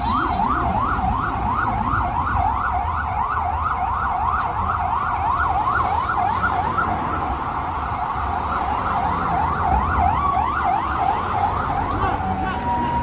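Emergency-vehicle siren in a fast yelp, its pitch sweeping up and down about three times a second. Near the end it changes to a steady held tone. A low rumble of traffic runs underneath.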